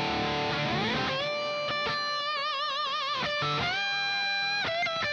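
Background music: a guitar playing a slow lead line with wavering, bent notes and slides over a held chord.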